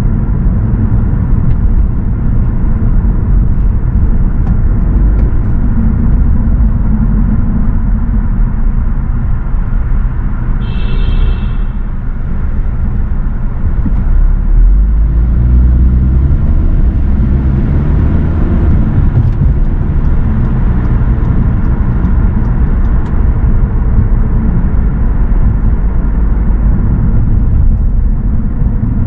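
Car driving on city streets: a steady low rumble of engine and tyres, with the engine note climbing a few times past the middle as the car accelerates. A brief high-pitched tone sounds about ten seconds in.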